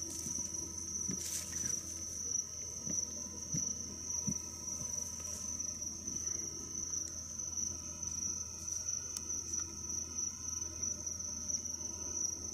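Crickets chirring in the grass in a steady, high-pitched chorus, with a few faint soft knocks in the first few seconds.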